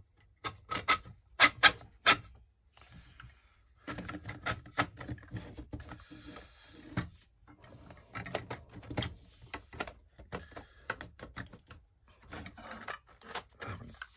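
Hard plastic blaster parts clicking, knocking and rubbing as they are slid along metal rods and pressed together by hand, with a cluster of sharper knocks in the first two seconds.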